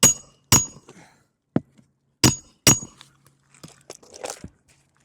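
Hammer driving roofing nails into a new asphalt shingle: four sharp, ringing strikes in two pairs about half a second apart, with a lighter tap between the pairs. Softer handling and scraping noise follows near the end.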